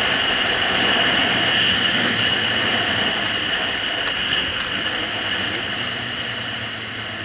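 Wind rushing past and a Suzuki GSR750's inline-four engine running while riding, growing gradually quieter over the last few seconds.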